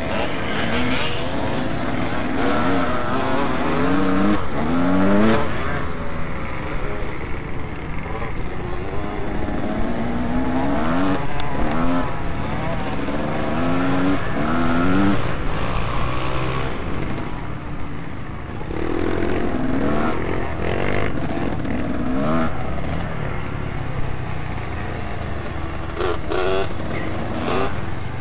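Motocross motorcycles racing, their engines revving up again and again in rising sweeps of pitch as they accelerate out of corners and through the gears.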